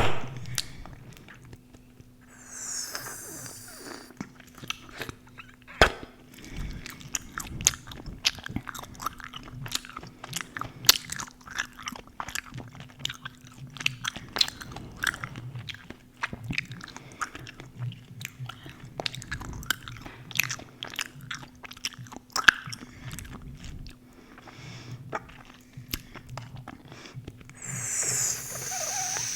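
Close-miked gum chewing: a continuous run of wet smacks, clicks and snaps from the mouth, with a faint steady hum underneath.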